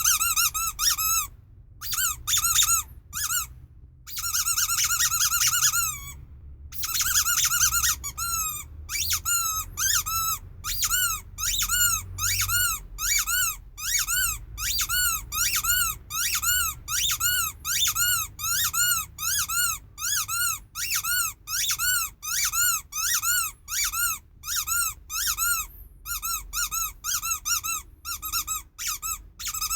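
Rubber sheep squeaky toy being squeezed and released over and over, each squeak a high tone that rises and falls. A few long drawn-out squeaks come first, then from about eight seconds in a quick run of short squeaks, about two a second.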